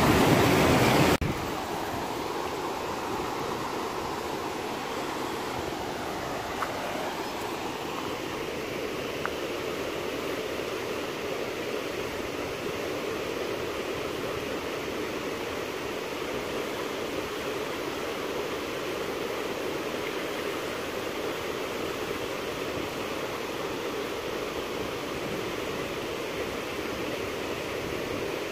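Fast, rushing river water: a steady noise of churning rapids, louder for about the first second and then dropping suddenly to an even level.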